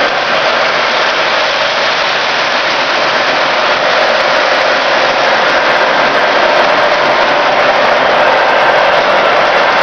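Electric model trains running on the layout's track, giving a steady, even noise from their motors and wheels.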